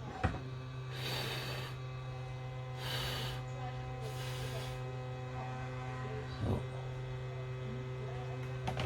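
A steady electrical hum switches on just after the start and runs on, with three short hisses about one, three and four seconds in.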